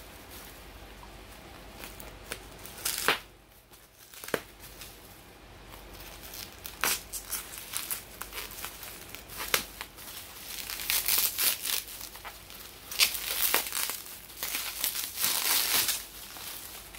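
Plastic bubble wrap crinkling and crackling as it is pulled off and unwrapped from a small box by hand, with scattered sharp crackles. The crinkling gets busier and louder in the last several seconds.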